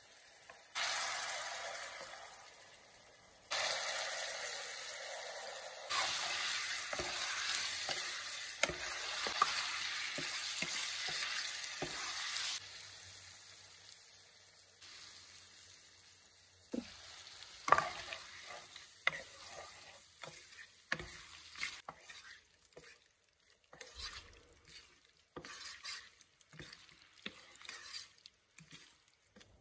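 Mezze maniche pasta and its sauce sizzling and bubbling hard in a nonstick pan while a wooden spoon stirs through it. The sizzle cuts off suddenly about twelve seconds in. After that, quieter stirring of the creamy pasta follows, with the wooden spoon clicking and scraping against the pan.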